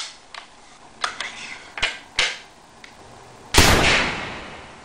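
A single sharp gunshot bang about three and a half seconds in, dying away over about a second. A few softer clicks come before it.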